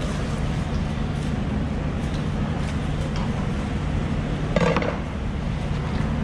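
Work sounds from butchering a whole yellowfin tuna on a wooden cutting table: faint clicks over a steady low hum, and one short, loud clatter about four and a half seconds in.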